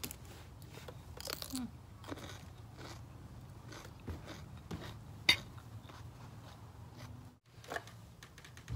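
A crunchy bite into a fresh cucumber, then chewing it with small wet crunches. A single sharp click comes about five seconds in.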